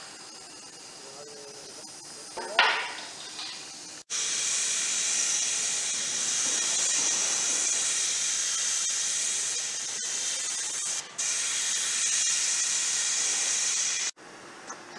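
Steady, high-pitched hiss of compressed air from pipe blasting and painting equipment. It starts suddenly about four seconds in, drops away briefly around eleven seconds and cuts off near the end. A short knock comes about two and a half seconds in, before the hiss.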